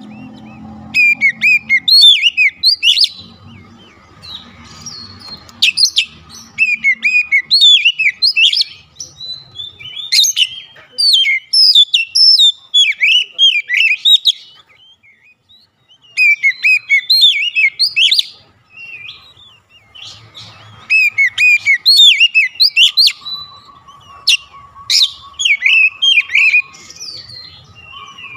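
Oriental magpie-robin singing: phrases of quick, varied whistled notes that swoop up and down, broken by short pauses, with a longer silence around the middle.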